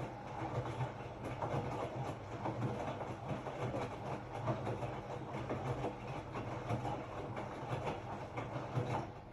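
Hotpoint-Ariston RSG 825 J washing machine running, a steady low hum under a dense, irregular rattle, which cuts off abruptly about nine seconds in, leaving a quieter hum.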